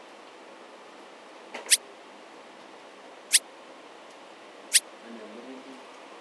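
Three short, sharp high-pitched clicks about a second and a half apart over a steady hiss, with a fourth right at the end.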